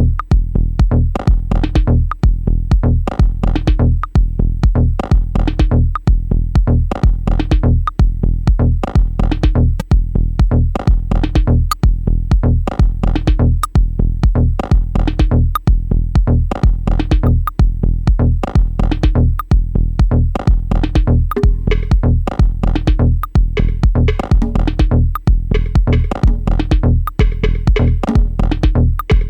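Dub techno groove from a Maschine drum machine and synths: a steady kick about twice a second over a deep held bass, with synth chords that fill out in the second half.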